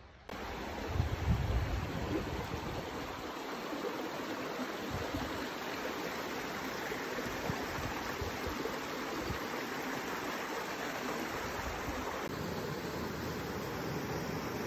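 Rocky woodland creek rushing over boulders in small cascades and a little waterfall: a steady, even rush of water that starts abruptly about a third of a second in. Low thumps on the microphone come through, strongest about a second in and scattered after.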